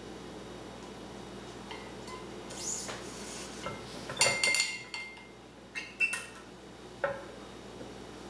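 Metal clinks and clacks from a badminton stringing machine and its metal string clamps as the racket is turned around on the mount: a quick cluster of ringing clinks about four seconds in, then a few single clacks.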